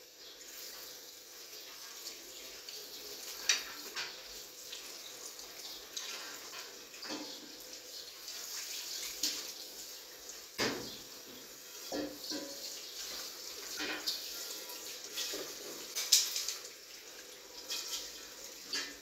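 Tap water running into a stainless steel sink while a metal pot is washed and rinsed, with occasional sharp clanks of metal cookware, the loudest a few seconds in and again near the end.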